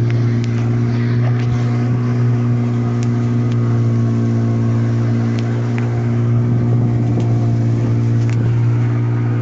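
Outboard motor driving an inflatable rescue boat under way, running steadily at one even pitch.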